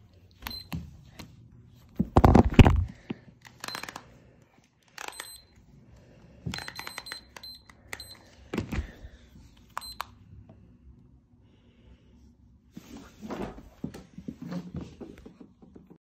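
Rustling and knocking of a phone being handled and covered, loudest about two seconds in. Several very short, thin high-pitched beeps are scattered through it.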